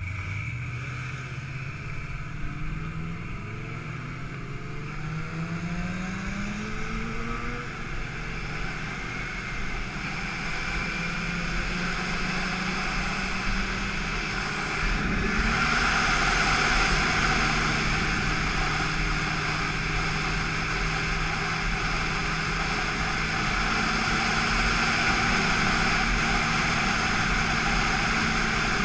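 BMW S1000RR's inline-four engine accelerating hard through several gears, the pitch climbing in repeated sweeps, then holding steadier at speed. From about halfway a loud rush of wind noise builds over it.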